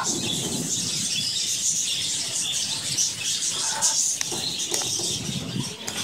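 A flock of budgerigars chattering and chirping, a continuous busy twittering of many birds at once.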